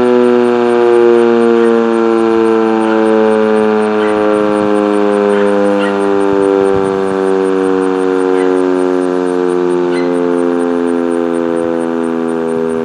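Sentry 10V electromechanical tornado siren sounding its full-alert steady tone, loud, with gentle swells in volume. Its pitch slowly falls throughout, as the rotor winds down at the end of the alert.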